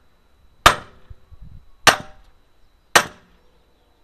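Hammer blows on the seized refrigerant compressor: three sharp metal strikes, about one a second, each with a short ring, driving stuck parts loose.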